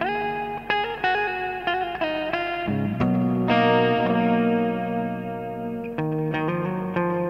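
Electric guitar played through a Prismatic Reverb pedal, a clone of the Deadastronaut Flying Saucer Reverb. Notes slide into pitch and are left to ring. A chord held from about halfway through rings out with a reverb tail before more notes are picked near the end.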